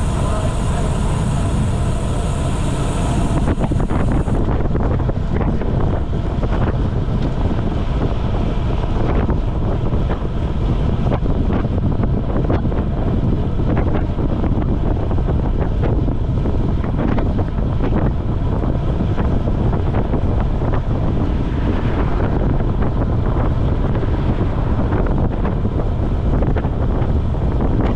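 Wind rushing steadily over the microphone of a camera on a road bike moving at about 25 mph.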